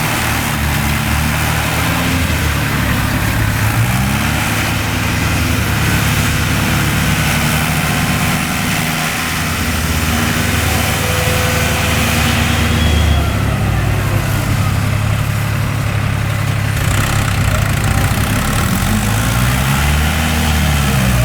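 Force tractor's diesel engine running under front-loader work, its pitch rising and falling as it is revved up and eased off, about four seconds in and again near the end.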